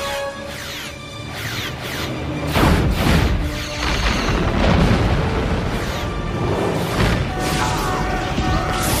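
Dramatic music over sci-fi space-battle sound effects. Heavy explosion booms from weapon hits on a starship start about two and a half seconds in, with another impact near seven seconds as a bridge console bursts into sparks.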